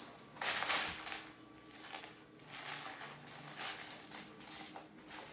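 Plastic LEGO bricks being handled and sorted by hand, with a louder rustle about half a second in and soft scattered clicks after it.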